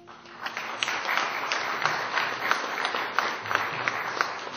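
Audience applauding: a dense patter of many hands clapping that swells in just after the start and holds steady.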